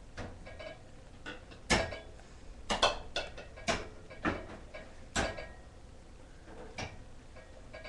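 Irregular knocks and taps, about ten in all and unevenly spaced, from hands and arms bumping the table and each other during sign language. The loudest knock comes about two seconds in.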